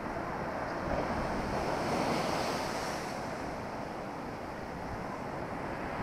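Storm surf on the Black Sea breaking and washing over a concrete sea wall, a continuous rush of foaming water that swells louder about two seconds in and then eases, with wind buffeting the microphone.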